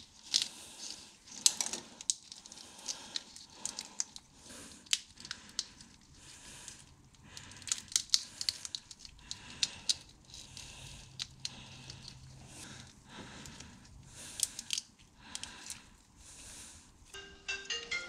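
Plastic wire loom and harness wires crinkling and clicking in irregular bursts as gloved hands fit the loom over an engine wiring harness. Music with a mallet-like melody starts near the end.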